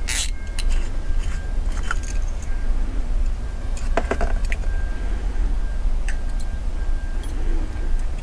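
Small metal carburettor parts clicking and clinking a few times as they are handled and set down on the bench, over a steady low hum.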